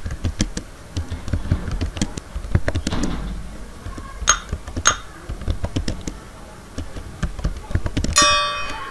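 Typing on a computer keyboard: an irregular run of key clicks, several a second. Near the end a short bright chime sounds from the typing program, marking the exercise as completed.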